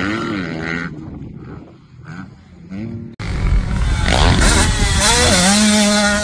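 Motocross dirt bike engines revving across short clips: a wavering engine note, then a quieter stretch with a distant bike, then about three seconds in an abrupt switch to a much louder, close bike revving with changing pitch.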